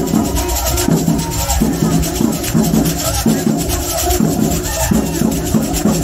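Samba-style carnival drum corps playing a fast, steady groove on bass drums and snare drums, the strokes repeating in an even pattern.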